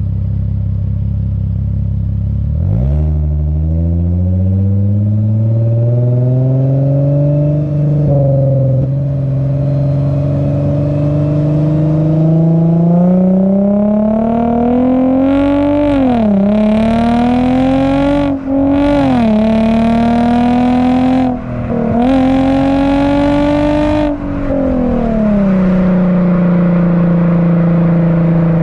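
Lexus IS350's 3.5-litre V6 through an HKS Hi Power cat-back exhaust with an Invidia mid-pipe, heard at the muffler tip on the move. The note is low at first, rises sharply about three seconds in and keeps climbing under acceleration, then drops and climbs again three times with the upshifts, and near the end eases off to a steady cruise.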